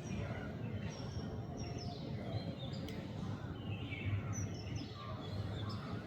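Birds chirping and calling in short, scattered high notes over a steady low background rumble.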